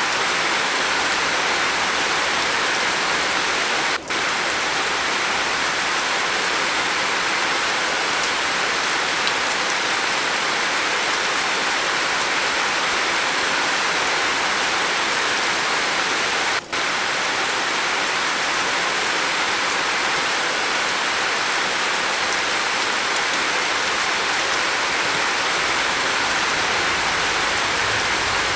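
Steady rain falling on a roof, an even hiss, with two brief dips in level, about four seconds in and again a little past the middle.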